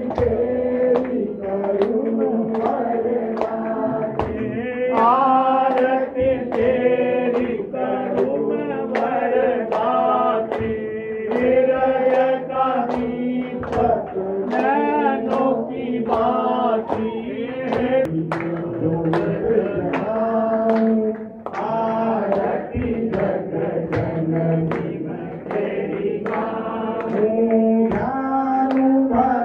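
A group of voices singing a Hindu aarti together over a steady held drone, with sharp percussive strikes keeping time.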